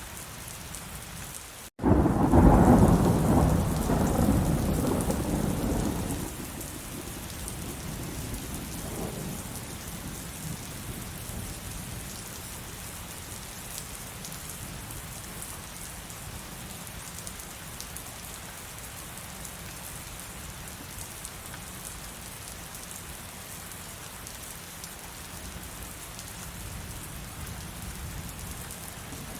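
Steady heavy rain, with a split-second dropout and then a loud thunderclap about two seconds in that rumbles away over the next several seconds, leaving the rain alone.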